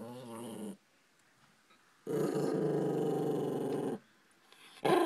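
Yorkshire terrier growling over beef jerky she wants: one growl ends just under a second in, a longer one of about two seconds follows after a pause, and another starts near the end.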